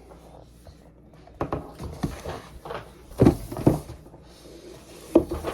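Knocks and scrapes of a laptop box and its packaging being handled, with two heavier thumps about three seconds in.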